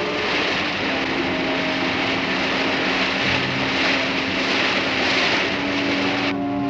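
Motorboat running fast through a choppy sea: a loud rush of bow spray and engine noise that cuts off suddenly near the end. Background music with long held notes plays underneath.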